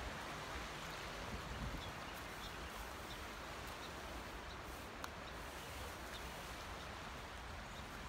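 Steady, faint rush of flowing river water, with a few small clicks.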